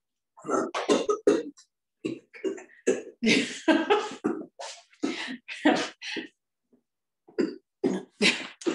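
A woman coughing repeatedly in short bursts, in several bouts, after swallowing an ice cube.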